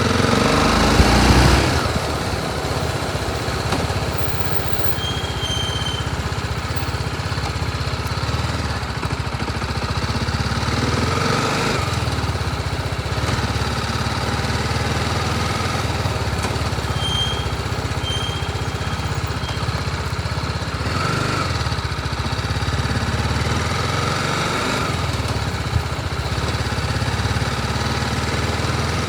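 BMW G 310 RR's single-cylinder engine running steadily, with a few brief swells in sound, the strongest about a second in.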